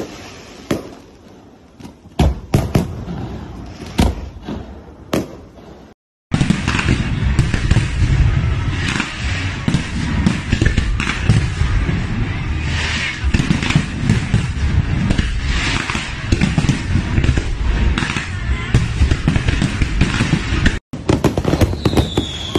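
Aerial fireworks going off. First there are a few separate bangs, then a dense, continuous barrage of bangs and crackling for about fifteen seconds. A short falling whistle comes near the end.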